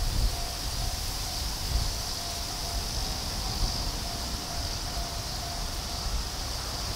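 A steady, high-pitched insect drone over a low rumble from a JR Freight EH500 electric locomotive and its container train approaching in the distance.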